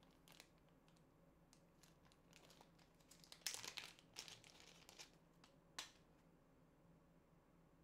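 Small clear plastic bag crinkling as it is handled and opened: faint rustles in short bursts, the loudest cluster about three and a half to four seconds in and a brief sharp one near six seconds.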